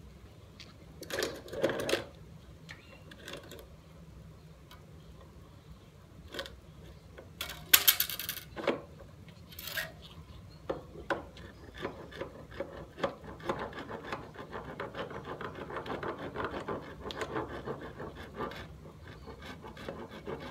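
Hands working on a skateboard on asphalt: scattered clicks and knocks, a louder clatter about a second in and another about 8 s in, then a long stretch of rapid clicking and rubbing in the second half.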